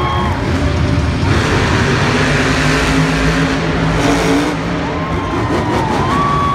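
Monster truck engines running loud in an arena, the engine note shifting up and down as the trucks rev, with a rush of extra noise through the middle.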